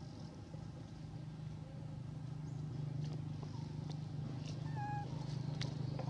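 A young macaque gives one short, high-pitched coo about five seconds in, over a steady low drone, with a few light clicks near the end.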